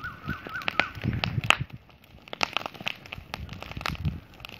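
Heap of burning straw crackling, with many sharp irregular pops. A wavering high tone is heard during the first second.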